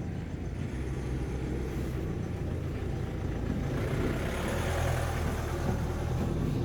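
A motor vehicle passing by on the road, its noise swelling gradually to a peak about four to five seconds in over a steady low rumble.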